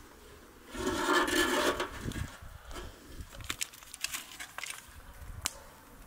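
A metal mesh dome cover scraping against the rim of a metal pan as it is lifted off, a rough rub lasting about a second. Lighter clicks and taps follow as foil trays are handled on the pan.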